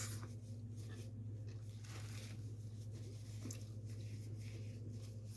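Faint eating sounds, a few brief crunches and chewing of food, over a steady low hum.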